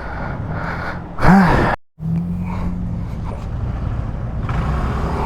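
A short, loud voice-like groan whose pitch rises and falls, then a brief cut to silence. After it, a motorcycle's engine runs steadily with wind and road noise, a low even hum under the rush.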